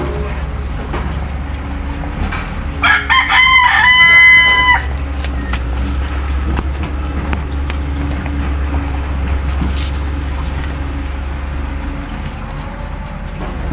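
A rooster crowing once, about three seconds in: a choppy start and then a held note lasting about two seconds, over a steady low hum.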